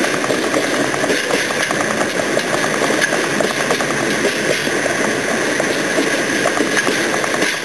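Steady engine noise with a dense rattle, heard from a car keeping pace with a slow-moving blue diesel freight locomotive, the two engines blending together.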